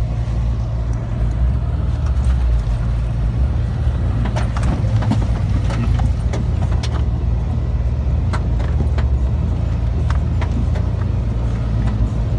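Suzuki Vitara's engine running steadily in low-range four-wheel drive, heard from inside the cab. Many short knocks and rattles sound over it as the truck drives off road.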